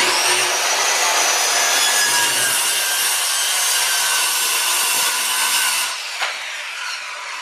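Handheld circular saw cutting through a thin wooden board: a steady, loud run of blade-in-wood noise over the motor's whine. About six seconds in the sound drops off and tapers away.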